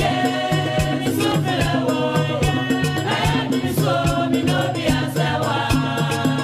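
Background music with a steady, quick percussive beat under sustained melodic lines.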